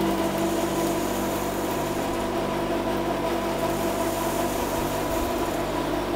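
Evol 500 wood-pellet production line running: a steady machine hum from its electric motors and fans, made of several held tones over a low rumble.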